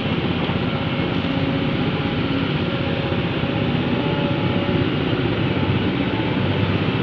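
Diesel engine of earthmoving machinery running steadily at a constant speed, with no knocks or load changes.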